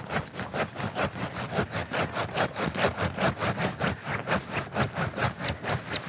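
Hand saw cutting through a thin tree trunk, with quick, even back-and-forth rasping strokes at about five a second.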